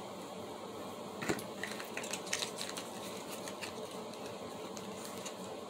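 Small clicks and taps as a lip gloss tube and its small cardboard box are handled. The sharpest click comes about a second in, with a scatter of lighter ones over the next second, all over a faint steady hiss.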